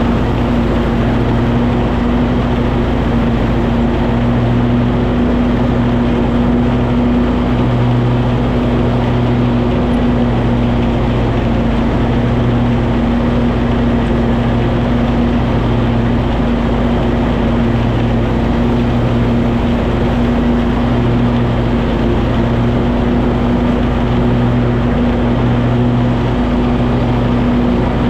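Cub Cadet 2554 garden tractor's engine running steadily while mowing, with its mower deck noise.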